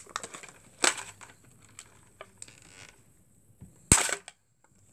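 Thin plastic packaging crinkling and crackling as Beyblade parts are pulled out of their wrapping. There are scattered rustles, and the loudest crackle comes about four seconds in.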